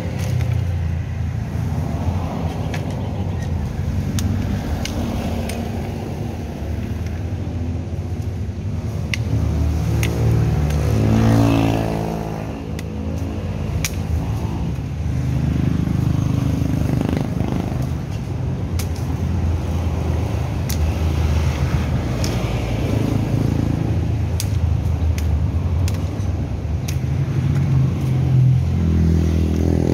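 Street traffic: cars and motorcycles passing with a steady engine rumble. A vehicle passes close about ten to twelve seconds in, its engine note rising then falling, and another builds up near the end, with light sharp knocks scattered throughout.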